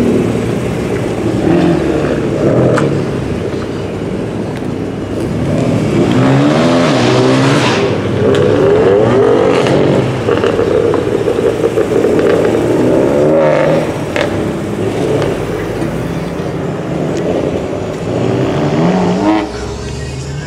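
BMW M cars' engines revving and pulling away, the pitch rising and falling again and again through the middle, with a steadier drone near the end.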